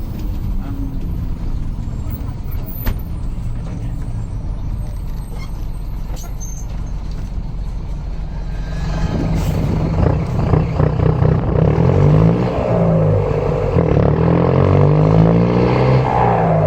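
Mercedes-Benz OM924LA four-cylinder turbodiesel of an LO 916 bus running at a low steady note, then louder from about nine seconds in, its pitch climbing and dropping repeatedly as the engine is worked harder.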